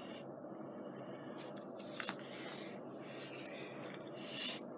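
Small handling noises at a craft table: a single sharp click about two seconds in and a short soft scrape near the end, over a steady low hum of a room fan.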